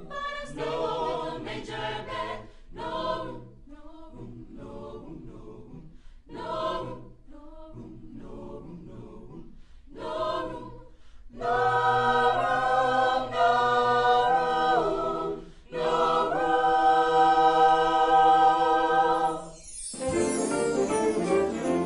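A choir singing: short phrases at first, then long held chords for the last part. Shortly before the end the singing stops and a different sound begins.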